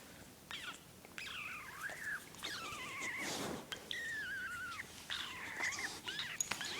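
A person making strange high-pitched squeaky, whine-like noises: a string of short wavering calls, several sliding down in pitch.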